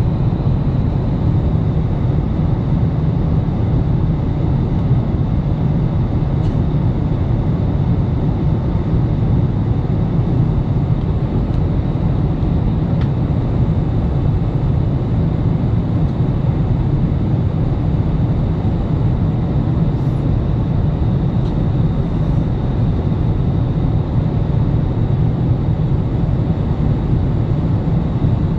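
Airliner cabin noise in flight: a steady, deep rushing of air and engines that does not change.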